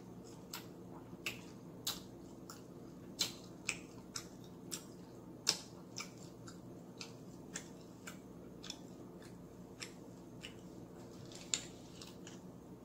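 A person chewing and biting fried chicken eaten by hand, close to the microphone: irregular wet mouth clicks and smacks, about two a second, over a faint steady hum.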